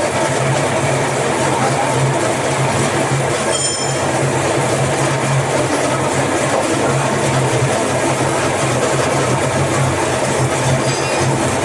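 Workshop machine running steadily and loudly with a constant low hum, giving a brief high-pitched squeal about four seconds in.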